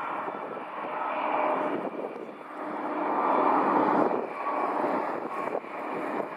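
Turbofan engines of an Embraer 175 regional jet running as it rolls out on the runway after landing, a steady jet noise with a faint whine that swells twice.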